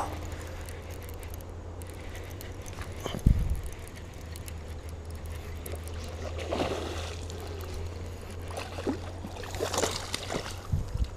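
A hooked bass splashing and thrashing at the water's surface as it is reeled in to the bank, in two bouts, about six and ten seconds in. A single sharp knock about three seconds in.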